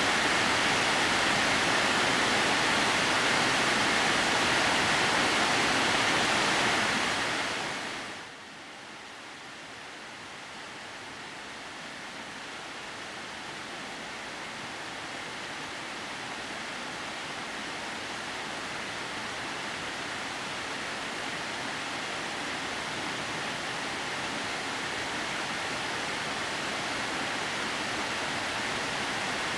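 Steady rushing of a waterfall that falls in thin strands over a rock face. About seven seconds in it fades down sharply, then comes back much quieter and slowly grows louder.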